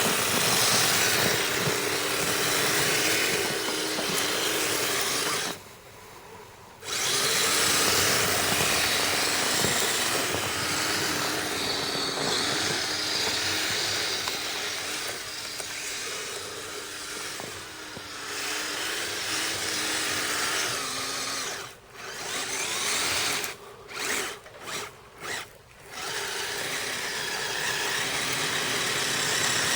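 Kyosho Blizzard SR radio-control snowcat's electric motors and geared tracks whining as it drives, the pitch wavering with the throttle. The motors cut out for about a second a few seconds in, then stop and start several times in short spurts near the end.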